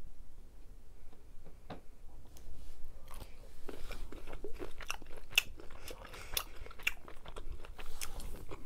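A person chewing and biting cooked jumbo shrimp close to the microphone: wet mouth sounds with many short, sharp clicks, which come thickly from about two seconds in.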